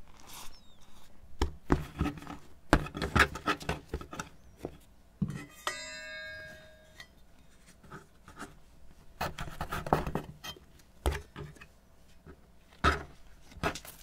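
Bread dough being handled and cut on a wooden board: a series of knocks and taps as a bench scraper chops down through the dough onto the board, with a brief ringing tone about six seconds in.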